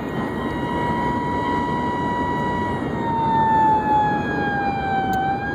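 Emergency vehicle siren wailing slowly: its pitch holds, then falls and climbs again near the end. It is heard from inside a moving vehicle over steady road noise.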